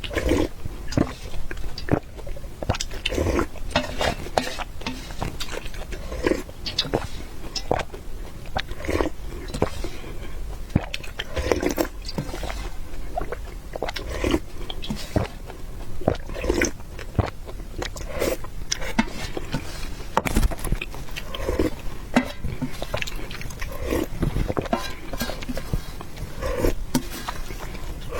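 Close-miked eating sounds: wet chewing, smacking and slurping of mouthfuls of food, with many small clicks of the mouth and utensils, repeating irregularly about once a second.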